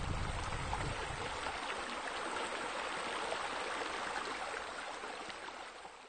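Running water, a steady splashing hiss like a water feature pouring into a pool, fading out near the end; a low rumble under it dies away about a second in.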